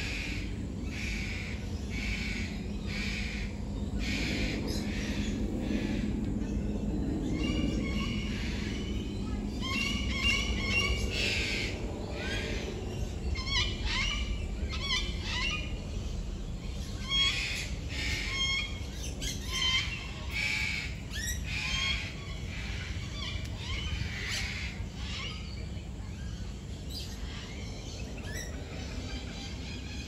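Several birds calling and chirping, short calls repeated over and over, over a steady low background rumble.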